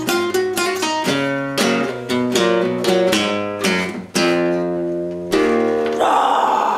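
Nylon-string classical guitar strummed, chords struck one after another and left to ring and fade between strokes.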